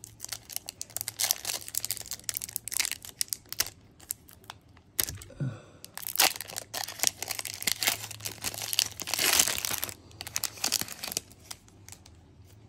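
A foil Pokémon booster pack wrapper being crinkled and torn open by hand, with irregular crackles, loudest about nine seconds in.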